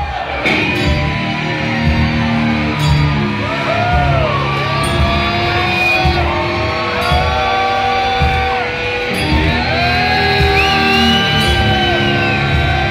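Heavy rock music: electric guitar playing sustained lead lines with pitch bends over a loud, dense band backing.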